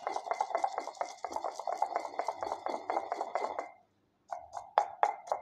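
Wooden pestle rubbing and knocking rapidly in a small mortar, about seven strokes a second, grinding wet almonds into a paste. The strokes stop briefly about three and a half seconds in, then resume with a few sharper knocks.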